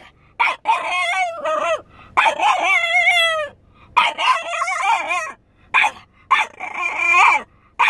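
French bulldog howling in a run of long, wavering, yodel-like cries with short breaks between them, the sound of a dog upset at being left while its owner is away.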